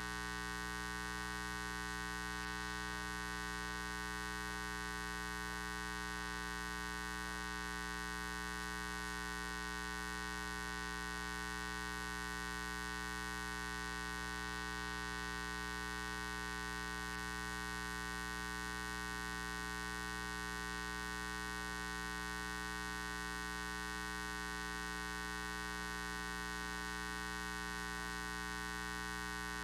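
Steady electrical mains hum: a constant buzz made of many evenly spaced overtones, typical of a ground loop or an electrical fault in the sound system.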